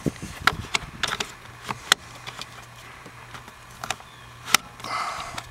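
Plastic clicks and taps as the latch is fitted back onto a 2002 Dodge Caravan's cabin air filter access door: scattered small clicks, a sharp click about two seconds in and the loudest near the end, followed by a brief rustle.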